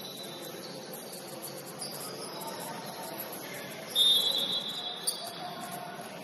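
Basketball gym during play: sneakers squeaking faintly on the court, then a referee's whistle blown about four seconds in, loud and shrill for about a second.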